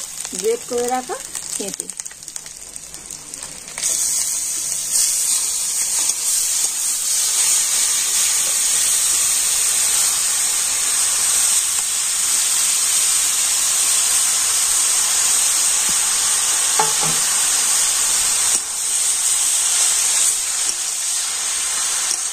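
Grated raw papaya frying in hot mustard oil in an aluminium kadai, stirred with a spatula. The sizzle is steady and rises sharply about four seconds in, then holds loud, with a brief dip near the end.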